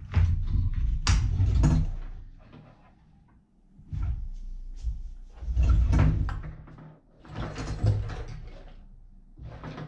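Handling noise of a scuba BCD being moved and turned over on a wooden table: thumps on the tabletop, rustling of nylon straps and clicks of buckles and metal D-rings, coming in irregular bursts with a quiet spell about three seconds in.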